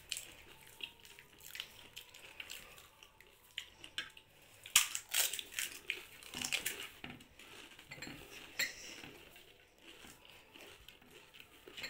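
Fuchka (pani puri) being eaten in a hurry: scattered short cracks and crunches of the crisp hollow puri shells being broken open with the fingers and bitten, with the odd clink of dishes. The sharpest crack comes about five seconds in.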